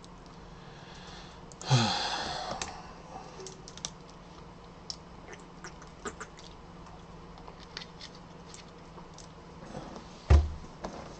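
Scattered computer keyboard and mouse clicks. About two seconds in, a louder noise lasting about a second that falls in pitch, and near the end a single heavy thump.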